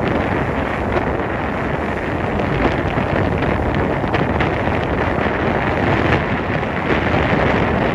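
Wind buffeting the microphone aboard a sailing catamaran: a steady, loud rushing noise with no engine tone.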